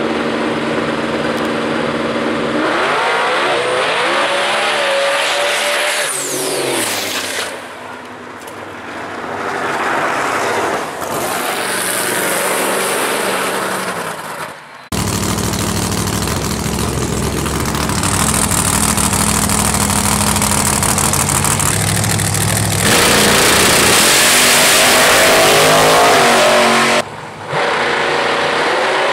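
Drag race cars' engines revving hard at the starting line and accelerating down the strip, the pitch climbing as they pull, heard in several short cuts. A few seconds in, a high whine rises over the engine, then drops away.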